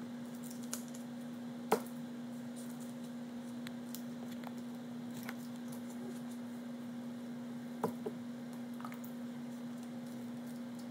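Plastic Elmer's slime activator bottles being handled and squeezed over a glass vase: faint handling noise with a few sharp clicks, the loudest about two seconds in and a quick pair near eight seconds, over a steady low hum.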